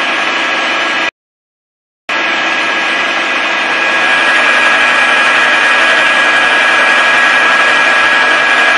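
Universal milling machine face-milling a metal block: a steady, loud cutting and spindle noise with a high whine running through it. The sound cuts out completely for about a second just after the start, then carries on.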